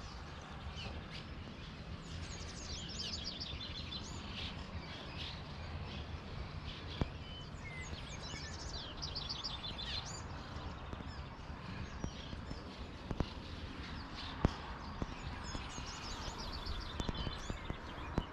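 Swallows twittering in repeated bursts of quick high chirps, over a steady low rumble, with a couple of sharp clicks.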